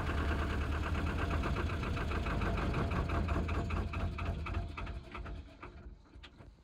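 Narrowboat's diesel engine running at low revs, with an even, rapid beat, fading away about five seconds in.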